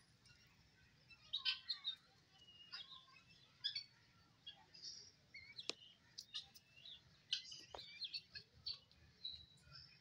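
Flock of helmeted guinea fowl calling with many short, high chirps, irregular and overlapping. Two sharp clicks come about six and eight seconds in.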